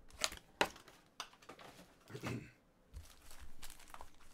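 Foil trading-card pack wrappers crinkling and rustling as the packs are handled and pulled from their box, with two sharp taps within the first second.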